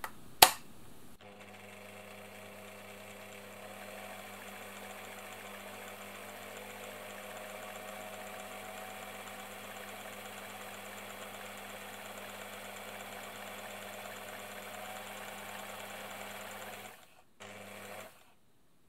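A sharp click as the hinged front hook cover of a Bernina 810 sewing machine is snapped shut, then the machine runs with a steady hum, its oscillating hook swinging back and forth in its freshly oiled race. The running cuts out near the end.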